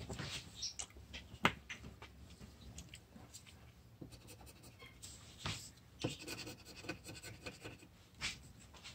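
Quiet, intermittent scratching and scraping on a paper lottery scratch ticket as its coating is rubbed off by hand, with a few short clicks and rustles. The sharpest click comes about one and a half seconds in.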